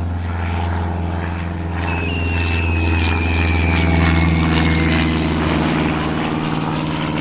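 Propeller-airplane engine sound effect, droning steadily with a low hum. A thin high tone slides slowly downward for a few seconds in the middle.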